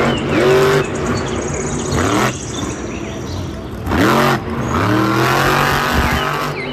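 Blue Thunder monster truck's supercharged big-block V8 running loud and revving hard, climbing in pitch soon after the start and again about four seconds in.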